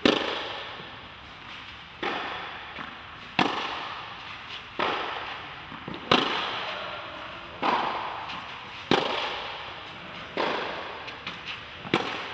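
Tennis rally: racket strings striking the ball about every one and a half seconds, louder and softer hits alternating between the near and far player. Each hit echoes and dies away slowly in the large indoor tennis hall.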